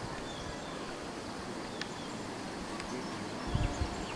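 Rural outdoor ambience: a steady hum of insects with a few faint high chirps, and a brief low thump about three and a half seconds in.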